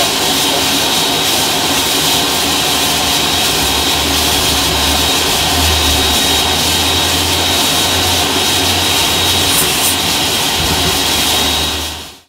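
Steady roar and hiss of steam inside the cab of Pere Marquette 1225, a 1941 steam locomotive, with a thin high whine running through it. A deep low rumble joins about four seconds in, and the sound fades out at the end.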